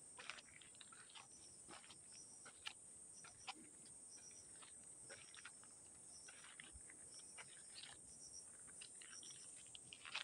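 Faint, steady high-pitched chorus of insects at dusk, with small repeated chirps. Scattered soft clicks and crunches of footsteps on a gravel road are heard throughout.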